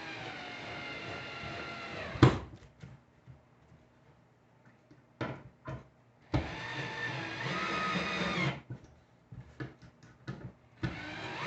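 Electric drill-driver driving wood screws into pine in three short runs of about two seconds each, with a sharp click after the first run.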